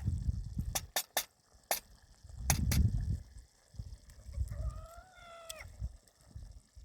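Several sharp knocks and low rumbling, then a single farm-animal call lasting about a second, a little past the middle, wavering at its end.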